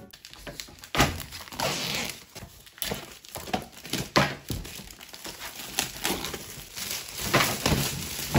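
Irregular knocks and thunks with plastic crinkling as a plastic-wrapped cork-and-whiteboard combo board is handled and knocks against a desk.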